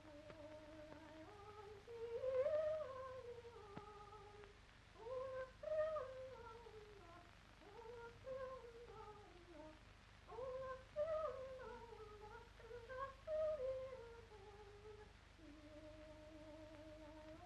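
Soundtrack music: a single voice singing a slow, unaccompanied melody in phrases of long, sliding notes.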